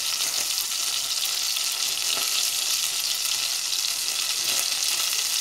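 Ground meat sizzling as it fries in a pot, stirred and scraped with a silicone spatula: a steady, high-pitched hiss.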